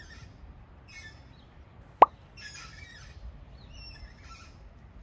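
A single short, loud pop about two seconds in, with faint high-pitched chirps and squeaks around it.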